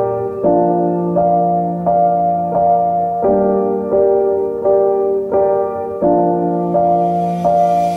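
Background music: a soft piano plays a repeating pattern of single notes over held chords, a new note about every three-quarters of a second. A hiss rises near the end.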